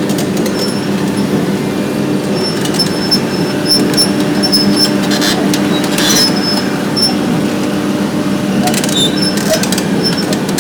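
Hitachi ZX 870-3 XXL long-front demolition excavator running with a steady engine hum while its demolition shear works, with short high-pitched squeaks and crackling, splintering clicks of breaking material, heaviest about halfway through and again near the end.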